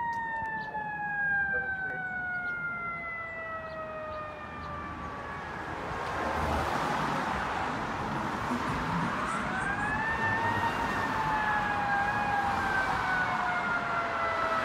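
Fire engine siren, its pitch sliding slowly down and fading, then rising again about two-thirds of the way in and slowly falling, louder as the engine approaches. A rushing noise builds from about halfway.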